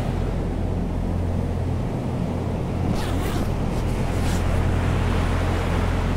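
Steady low rumble of wind noise, with a few brief rustles about three to four and a half seconds in.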